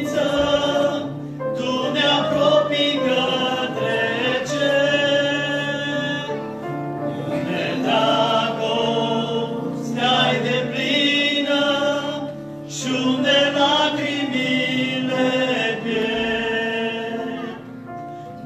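Group singing of a hymn in Romanian, with long sung phrases held for a second or two each and short breaths between them.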